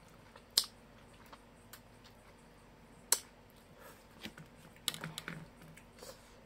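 Close-up eating sounds: two sharp clicks in the first three seconds, then a quick run of smaller crunches and clicks about five seconds in, as someone eats fried food and rice by hand.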